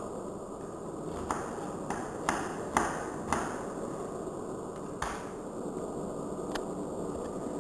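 A series of about seven sharp clicks at uneven intervals over a steady low background noise, the loudest a little under three seconds in.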